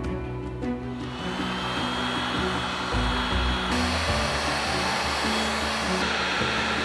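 A steady rushing whir of an electric tool starts about a second in and runs on under plucked-string background music, shifting in strength a couple of times.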